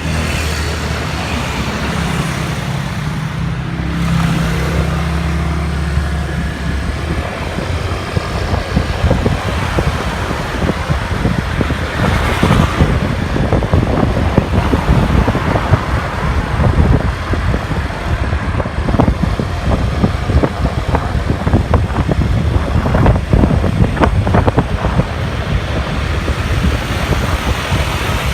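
A car driving on the road: steady, loud road and engine noise with a low hum in the first few seconds, then rough, crackly rumble over the rest.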